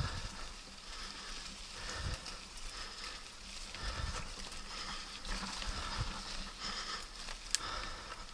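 Mountain bike rolling over a rough, rocky dirt trail: the bike rattles, with dull thumps over bumps about two, four and six seconds in and a sharp click near the end.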